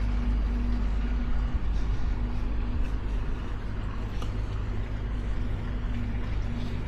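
A large engine running with a steady low rumble, with a hum that keeps cutting in and out over it.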